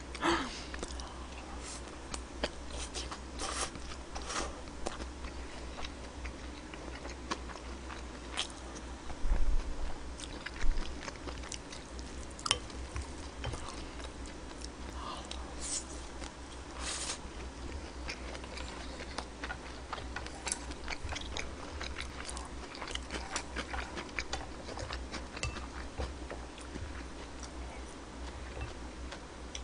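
Close-miked eating: chewing and biting on bean-sprout rice, with many small clicks of chopsticks and a spoon against the bowl, over a low steady hum. A few louder knocks come about nine to eleven seconds in.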